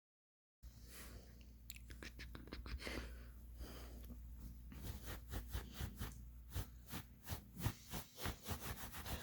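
A pet's fur being scratched close to the microphone: a run of short scratching strokes that come faster and louder over the last few seconds, over a low steady hum.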